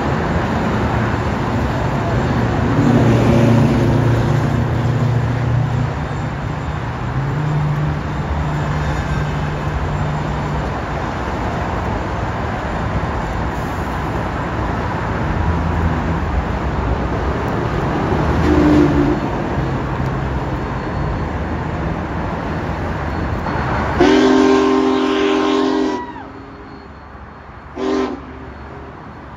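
Union Pacific Big Boy No. 4014's steam whistle, blown softly at first and wavering in pitch, then opened to a loud full chord about 24 seconds in that cuts off sharply two seconds later, followed by one short toot near the end.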